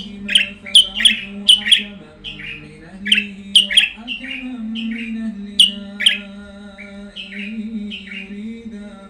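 Caged songbird singing a quick run of sharp chirps, each sweeping down in pitch. The chirps come thick and loud in the first half and thin out toward the end, over a steady low background drone.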